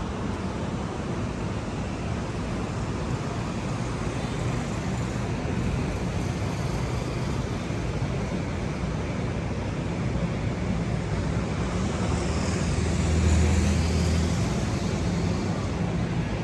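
City road traffic: a steady wash of passing cars, with one vehicle going by closer and louder about thirteen seconds in.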